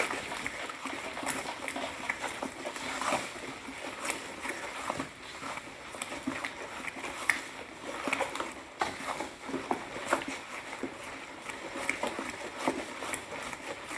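A wooden stick stirring a bowl of foamy liquid-soap mixture as extra water is worked in: irregular sloshing and swishing, with many small clicks.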